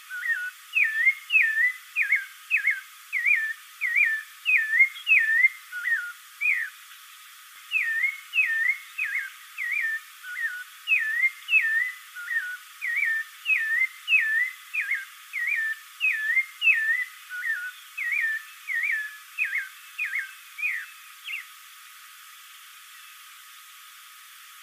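Spectacled thrush (Turdus nudigenis) singing a long run of short, clear whistled notes, about two a second. The song pauses briefly about seven seconds in and stops near the end, leaving faint hiss.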